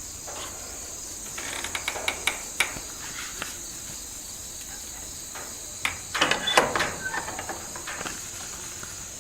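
Steady, high-pitched chorus of crickets trilling, with two spells of rustling and light knocks, about two seconds in and again about six seconds in.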